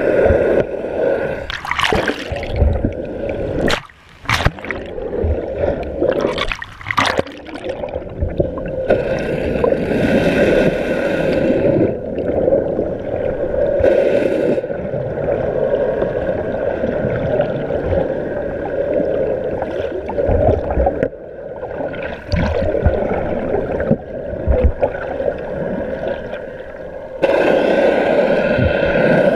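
Water rushing and gurgling over an underwater camera moving just below the surface, with a steady low hum underneath and several brief loud splashing surges as the surface churns over it.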